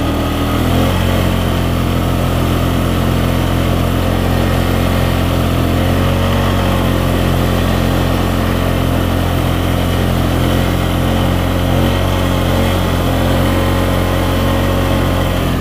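Polaris Sportsman ATV engine running steadily, its pitch shifting slightly about a second in.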